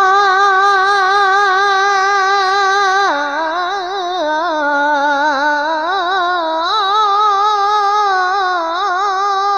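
A man singing a gojol (Bengali Islamic devotional song) in a loud, strong voice. He holds one long wavering note, dips into a lower ornamented run about three seconds in, and climbs back to the first note near the end.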